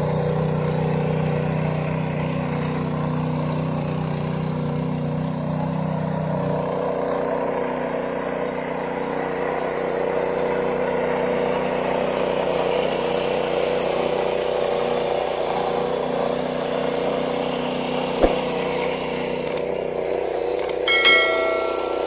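Small petrol engine of a 7 hp power weeder (mini tiller) running steadily while it tills soil. Near the end there are a few clicks and a short chime, a subscribe-button sound effect.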